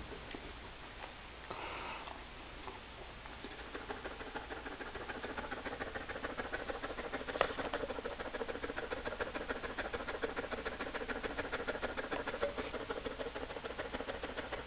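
A dog panting heavily: quick, even breaths about six a second, starting a few seconds in and growing louder.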